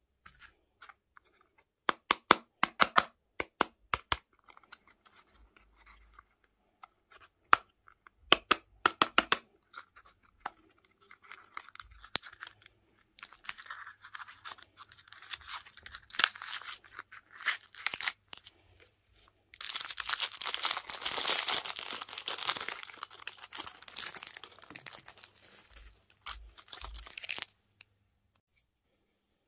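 Candy packaging being opened by hand: a small cardboard toy-and-candy box and its crinkly wrapping are rustled and torn. Two quick runs of sharp clicks come first, then rustling and tearing that grows loudest in the last third and stops shortly before the end.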